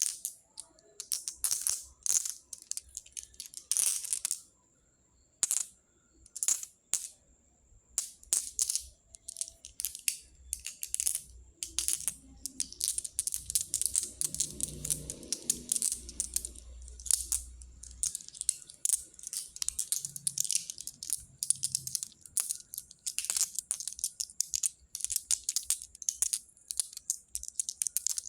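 Small pebbles clicking and clattering against one another as they are handled, in irregular runs of sharp clicks, with a brief pause about four to five seconds in.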